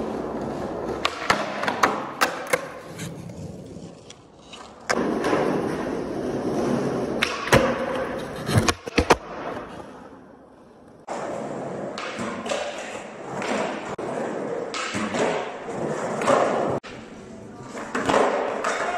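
Skateboard wheels rolling on concrete, broken by several sharp clacks and thuds as the board is popped, flipped and lands during trick attempts.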